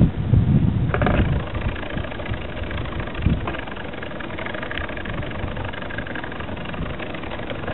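Wind buffeting a helmet camera's microphone, loudest in the first second or so, over the steady rolling hum of knobbly mountain-bike tyres on tarmac.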